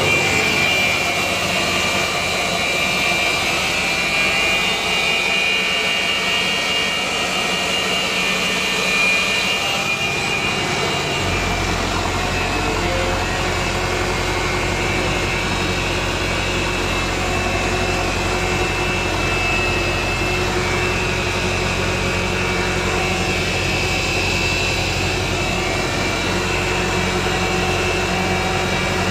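Massey Ferguson 165 tractor engine running steadily while driving, with a steady high whine like the fan of the pneumatic seed drill it pulls. About eleven seconds in, a deep low hum sets in and carries on.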